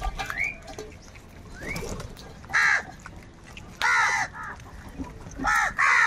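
A flock of house crows cawing: three loud, harsh caws about two and a half, four and five and a half seconds in, the last a quick pair, with softer calls in between.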